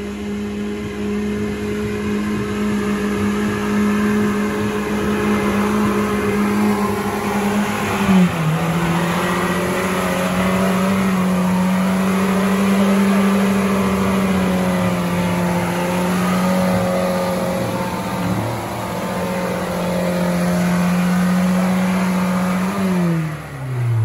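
An off-road 4x4's engine is held at high revs under load, as on a slippery mud climb. The note drops and settles slightly lower about eight seconds in, dips briefly later, then the revs fall away quickly near the end.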